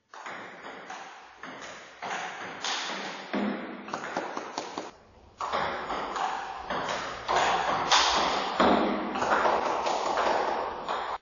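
Table tennis ball clicking off rubber paddles and bouncing on the table in rallies: a quick run of sharp taps and pings.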